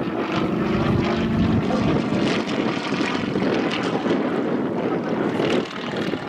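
Yak-52's nine-cylinder radial engine and propeller droning as the aircraft flies aerobatic manoeuvres overhead. The engine's pitched tone is clear in the first second and a half, then gives way to a rougher drone that dips briefly near the end.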